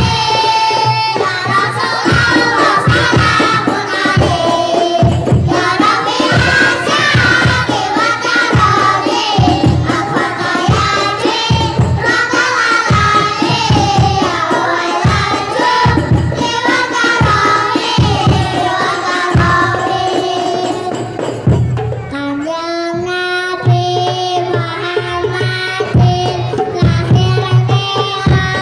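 Children's rebana group singing into microphones over rebana frame drums beating a steady rhythm. About three-quarters of the way through, the singing changes to longer held notes.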